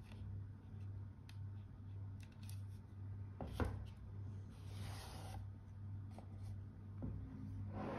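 A cardboard watch box being handled: its lid slid off the base with soft rubbing, a single knock about three and a half seconds in, then more rubbing as the lid is set down, over a low steady hum.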